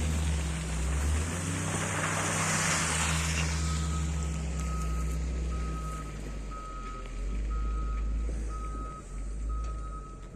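A heavy vehicle's reversing alarm beeping at a steady pace, a little faster than once a second, starting about three and a half seconds in, over the low running of its engine. Earlier there is a brief hiss about two seconds in.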